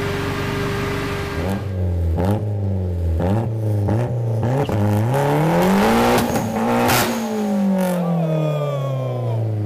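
Hyundai Genesis Coupe's 2.0-litre turbocharged four-cylinder engine on a chassis dyno. It revs up in several short climbs, each cut off by a sudden drop, then makes one long rising pull before the revs fall away slowly as it winds down.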